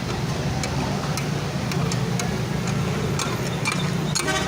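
Scattered sharp metal clicks and taps, like a metal spatula working on a tawa griddle, over a steady low hum.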